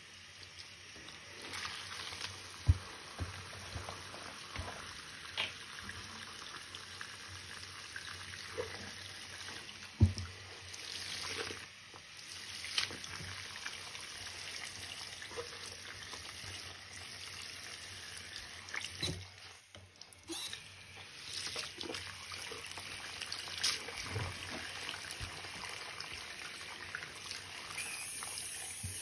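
Tap water running into a bathroom sink while a soaked sponge is squeezed and rinsed under the stream, with squelching and splashing throughout. Two sharp knocks stand out, about 3 s and 10 s in.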